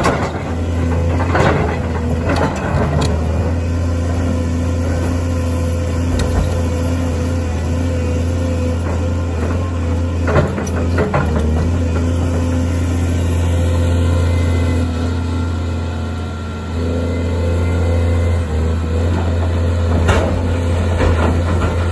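Caterpillar 336D hydraulic excavator's diesel engine running steadily with a deep hum as it works, while its bucket scrapes and clatters against rock at intervals. The loudest clatter comes about twenty seconds in, as a bucketful of rock drops into the dump truck's bed.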